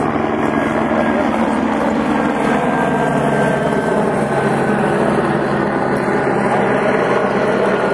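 Steady engine drone with several steady tones over a rush of noise, holding level throughout.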